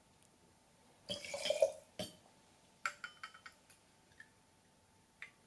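Cloudy apple juice poured from a small glass bottle into a steel bar jigger. A brief pour about a second in is followed by a few light clinks of glass and metal.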